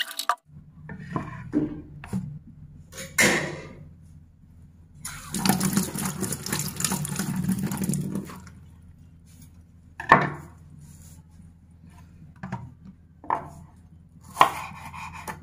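Kitchen prep sounds. A running tap cuts off right at the start, followed by scattered knocks and clatter and a rushing stretch of about three seconds in the middle. Near the end a kitchen knife strikes a wooden cutting board a few times as a shallot is sliced.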